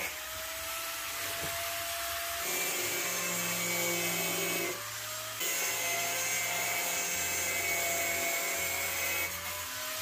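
Electric angle grinder with a thin cutting disc running and slicing through a plastic drum: a steady high motor whine over a harsh grinding rasp. It eases off briefly about halfway through, then cuts on.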